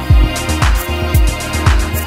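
Background electronic music with a steady beat, about two kick-drum thumps a second with crisp snare hits between.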